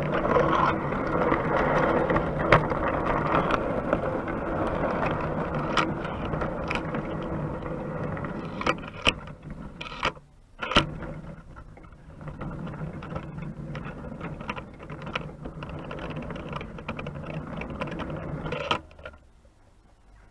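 O gauge three-rail tinplate model train running, heard from on board: a steady rattle of wheels and motor gears on the track with sharp clicks here and there. It grows quieter, drops out briefly about halfway, then stops suddenly near the end.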